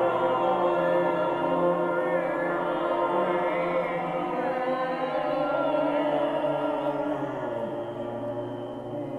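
Ambient vocal music: layered, wordless choir-like voices holding sustained chords that slowly glide in pitch, gradually getting quieter toward the end.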